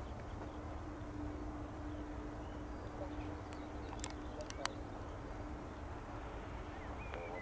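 Airbus Beluga A300-600ST's twin jet engines running at low power as it taxis at a distance: a steady rumble with a faint steady hum. Two short sharp clicks come about four and four and a half seconds in, with faint bird chirps.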